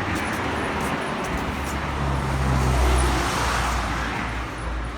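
A car engine running with a loud, unusual noise. A low hum swells louder about two seconds in, then eases off.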